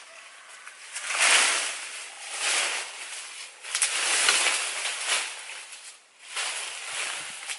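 Leafy branches rustling as they are pulled and bent down by hand, in several bursts.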